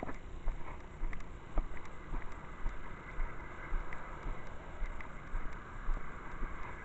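Footsteps heard through a chest-mounted camera: low thumps about twice a second at a walking pace, with the hiss of a car passing on the road swelling midway.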